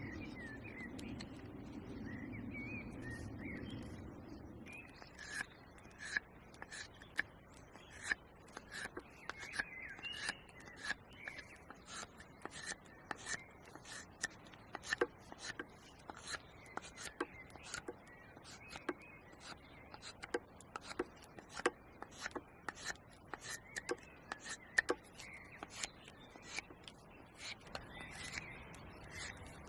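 A knife carving wood: a steady series of short scraping cuts, about two to three a second, beginning a few seconds in after a low rustle.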